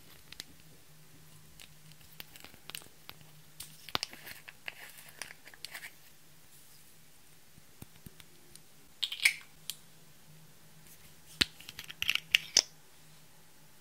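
Small plastic cosmetic containers being opened and handled over a glass dish: scattered light clicks, taps and scrapes, with louder bunches of clicks about nine seconds in and again around twelve seconds.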